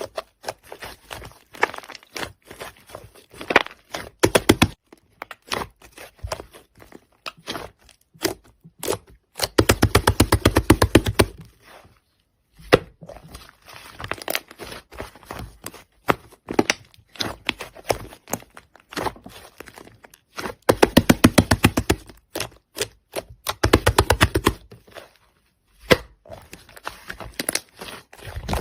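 Slime being squeezed and pressed, giving scattered clicks and pops, with two longer runs of rapid crackling clicks, about ten seconds in and again about twenty seconds in.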